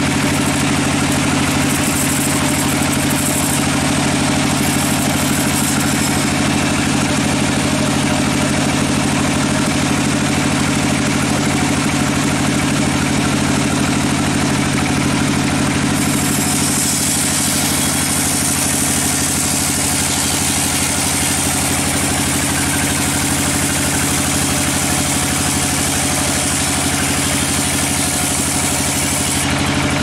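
Band sawmill running steadily, its blade cutting lengthwise through a large log over the drone of the machine's drive. A higher hiss joins about halfway through and stops shortly before the end.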